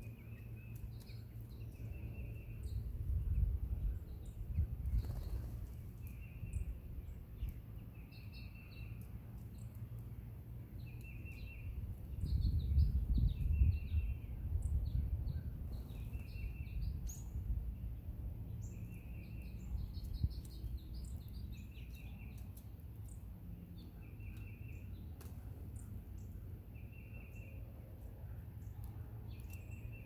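Small songbirds chirping outdoors, with one short call repeated about every two seconds and scattered higher chirps in between, over a low rumble that swells twice.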